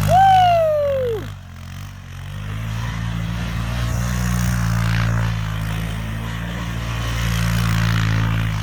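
Quad (ATV) engine running under throttle. Its sound drops briefly about a second in, then picks back up and holds steady.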